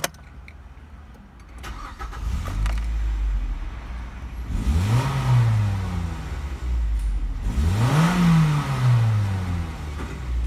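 Mazda 6's 2.0-litre LF inline-four petrol engine, heard from inside the cabin, starting about two seconds in and settling to idle. It is then revved twice, the second rev higher, each time rising quickly and falling back to idle.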